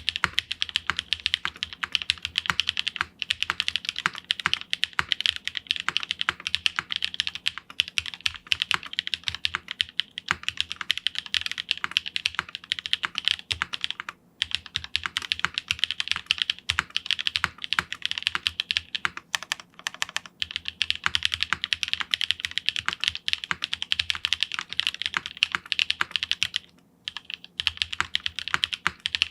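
Steady, fast typing on a Geonworks Frog TKL mechanical keyboard with Epsilon switches on an FR4 half-plate, GMK keycaps and no case foam, keystrokes clattering in a dense run. The typing pauses briefly about 14 seconds in and again near the end.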